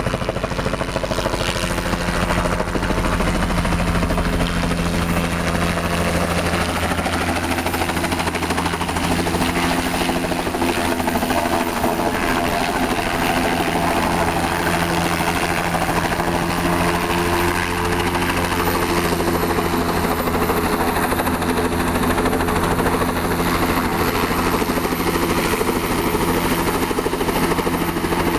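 Helicopter engine and rotor running close by, a steady loud drone with several held low tones, as the helicopter comes in to land on a small helipad.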